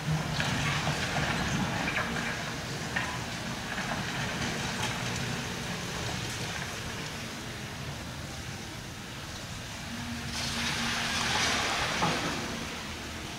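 Demolition machinery at work: a steady engine drone under bursts of rushing, clattering noise with scattered knocks. The bursts come about half a second in and, loudest, from about ten to twelve seconds in.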